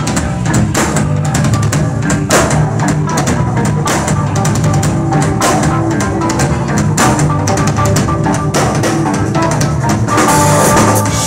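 Live rock band playing an instrumental passage: drum kit with steady bass drum and snare hits under electric guitar and keyboards.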